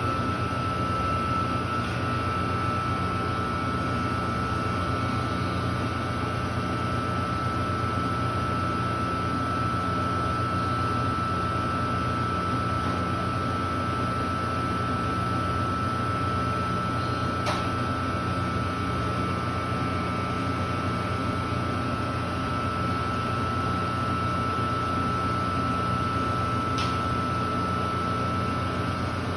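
Taylor C723 soft-serve machine running: a steady mechanical hum with a constant high whine over it. Two faint clicks, one about halfway through and one near the end.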